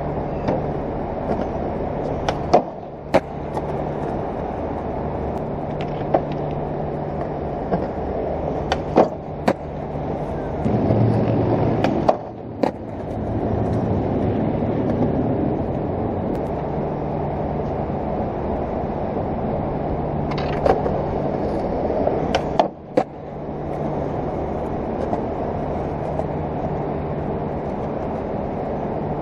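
Skateboard wheels rolling on rough concrete under a steady low hum, with about ten sharp clacks of the board scattered through, a louder rolling stretch around ten seconds in.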